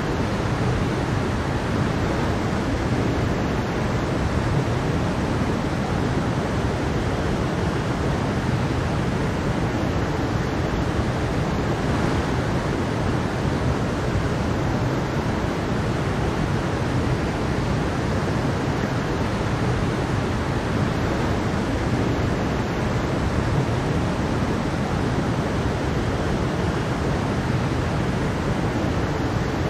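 Mountain stream running over rocks with a small waterfall: a steady, even rush of water.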